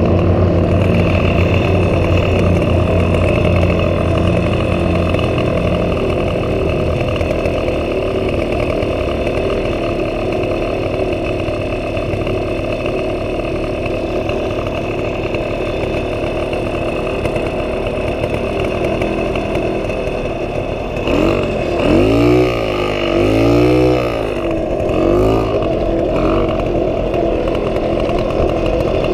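1977 Puch Pinto moped's 49cc two-stroke single-cylinder engine idling steadily, then revving up and down in a few rising-and-falling surges near the end as the moped pulls away.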